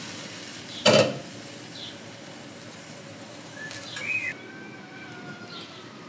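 A single sharp clack of cookware about a second in, with a brief ringing, against a steady background hiss. A few faint bird chirps come through near the middle.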